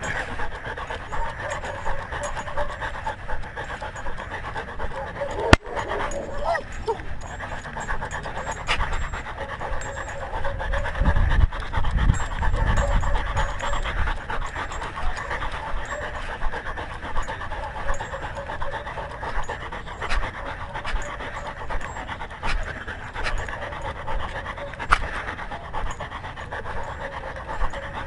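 A dog panting steadily, heard close up from a camera on its collar. A single sharp click comes about five and a half seconds in, and a low rumble a few seconds later.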